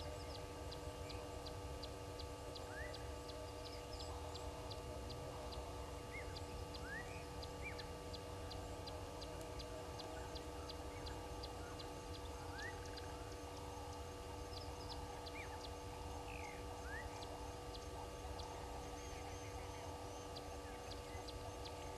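Birds calling in the bush: a regular high ticking about two a second, short rising whistles every few seconds, and a busy background chatter of other birds, over a steady electrical hum and low rumble.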